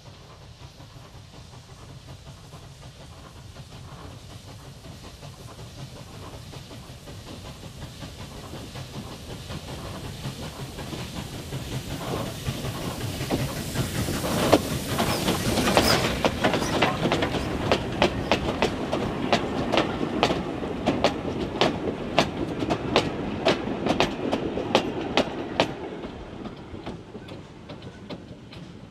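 Victorian Railways K-class 2-8-0 steam locomotive K153 approaching and passing close by with its train, growing louder to a peak about halfway through. Then the carriage wheels click over the rail joints, about two or three clicks a second, fading as the train goes away.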